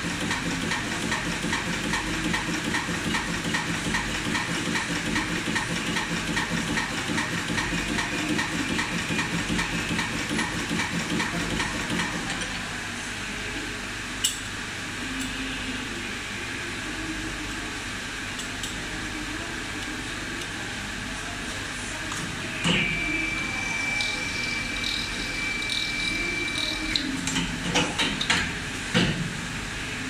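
Automatic blower wheel assembly machine running with a steady hiss: a regular mechanical clatter about twice a second for the first twelve seconds, then a steadier run. A sharp click comes about halfway, then a thud followed by a steady high tone lasting about four seconds, and several knocks near the end.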